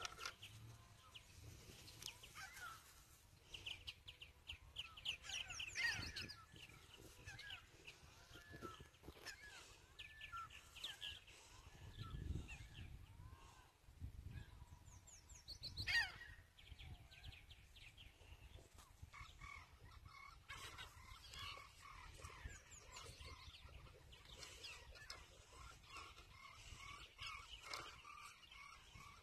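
Wild birds calling: many quick chirps and trills throughout, with a louder call about six seconds in and another about sixteen seconds in.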